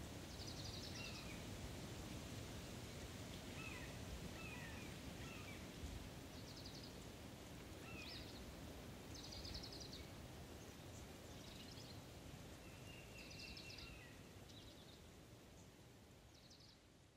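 Faint bird chirps and short trills scattered over a steady hiss of outdoor ambience, fading out near the end.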